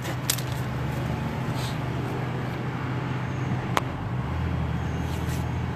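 Steady low hum of a running motor vehicle, with a couple of light clicks; a deeper hum joins about four seconds in.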